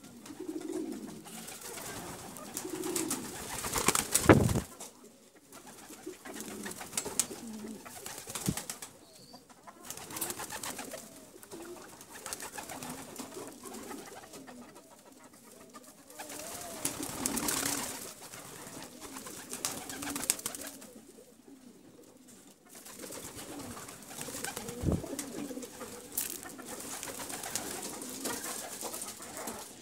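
Domestic pigeons cooing on and off in low, warbling phrases. There is a sharp clap about four seconds in, the loudest sound, and some lighter clattering later.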